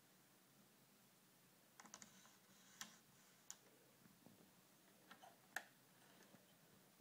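Faint scattered clicks and ticks from a hand working the controls of a Technics SL-P1200 CD player: a small cluster about two seconds in, then single clicks, the sharpest a little past five seconds.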